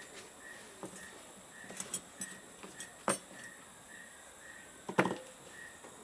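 Scattered light clicks and taps from hands, needle and tools at work on a bird skin being sewn up, with one louder knock about five seconds in. Under them an insect chirps steadily, about two short pulses a second.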